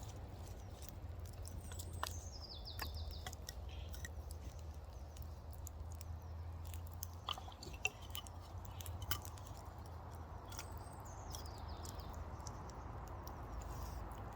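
Wood campfire crackling with scattered sharp pops. A small bird sings a short twittering phrase twice, once early and once about three-quarters of the way through.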